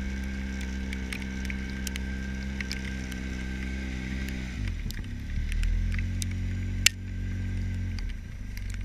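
Side-by-side UTV engine running at a steady low speed, its revs dropping about halfway through, picking up again and falling off again near the end. A single sharp click a little before the final drop.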